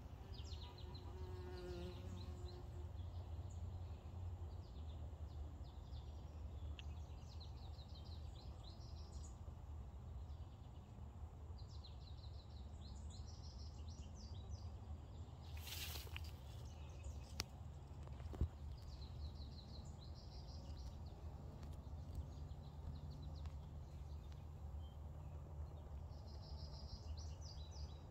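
Bumblebee buzzing low and steady at flower spikes, faint. Short high pulsed trills from other insects or birds come and go in the background every few seconds, with a brief hiss and a couple of small clicks about two-thirds through.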